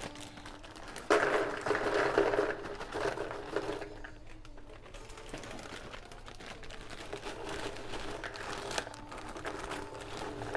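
Plastic bags crinkling as they are handled and opened, loudest for a few seconds about a second in, then lighter rustling with a sharp click near the end.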